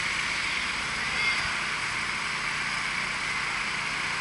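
Steady engine drone with a hiss, unchanging in level.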